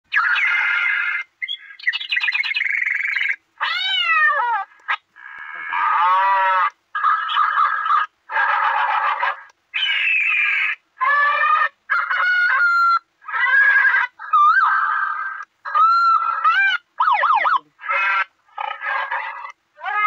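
A handheld megaphone's built-in sound effects play one after another as its music/siren button is pressed over and over. There are about twenty short effects, including falling and rising siren sweeps, warbles and animal-like calls, each stopping abruptly before the next begins.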